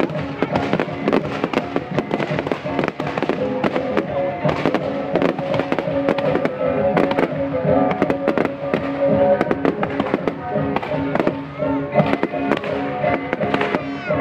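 Fireworks display: a rapid, continuous string of sharp bangs and crackles from bursting shells and rising rockets, with music playing under it.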